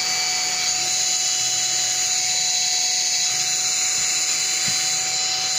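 Electric drill running steadily with a high-pitched whine as it bores a hole through a metal number-plate bracket, still cutting and not yet through.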